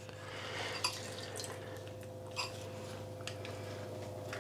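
Lemon juice dripping from a hand-held lemon squeezer into a bowl of mashed avocado, with a few short clicks as the squeezer is pressed.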